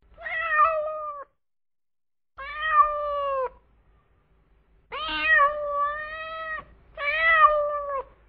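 A cat meowing four times, each meow long and drawn out, lasting over a second.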